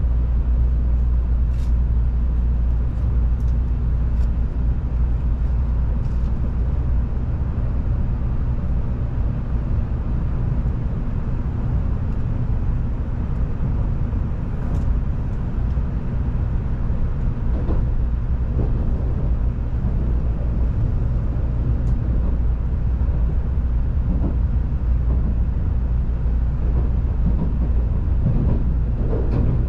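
Cabin running noise of a Tokaido Shinkansen N700-series train: a steady low rumble with a few faint ticks, swelling slightly near the end.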